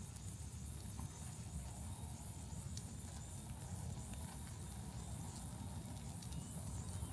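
Large wood fire burning with a steady low rumble and a high hiss, broken by a few sharp crackles and pops from the burning wood.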